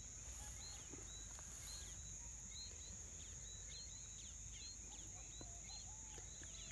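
Quiet rural ambience: a steady high-pitched insect drone with many short bird chirps repeating every half second or so.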